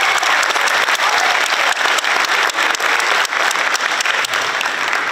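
Crowd applauding: many people clapping densely and steadily, the cheering from just before having died away.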